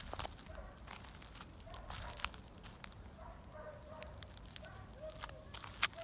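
A cat meowing in a string of short calls, with sharp clicks and crunches around it, the loudest click near the end.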